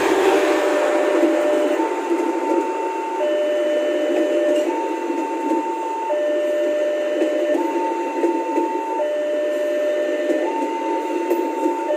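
Two-tone electronic warning alarm, alternating between a lower and a higher tone about every second and a half, over the steady rolling noise of train coaches passing slowly.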